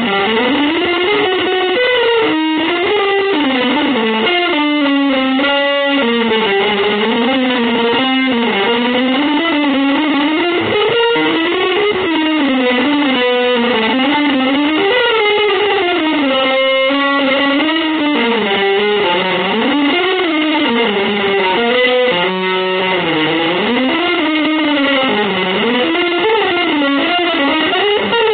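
Electric guitar music: one continuous melodic line that winds and glides up and down in pitch, at a steady level.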